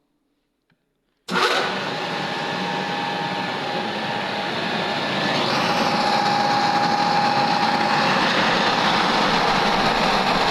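VTs14-46 No. 3.15 medium-pressure centrifugal fan with a 2.2 kW, 1500 rpm electric motor switched on about a second in: a sudden rush of air with motor hum, growing a little louder with a steady whine as it comes up to speed, then running steadily.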